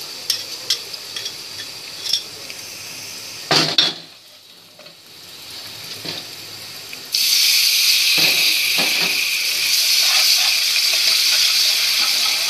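Crushed garlic and red chilli frying in hot oil in a nonstick pan: a light sizzle with clicks of a metal spatula stirring. About seven seconds in, a little water goes into the hot oil and the pan breaks into a sudden loud, steady hiss that keeps going.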